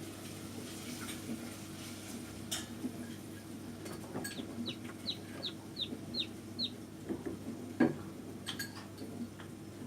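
Newly hatched chicks peeping: a run of short, falling peeps, about three a second, starting about four seconds in, with a few more near the end. Underneath is a steady low hum, with a few sharp clicks.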